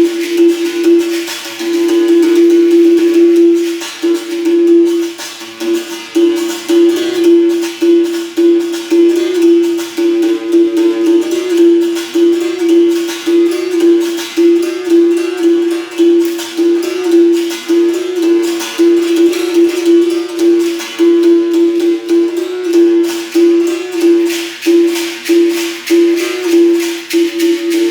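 Berimbau played with a caxixi rattle in a quick, even capoeira rhythm. The struck wire holds mostly one note, with a higher note now and then, and the rattle shakes along with each stroke.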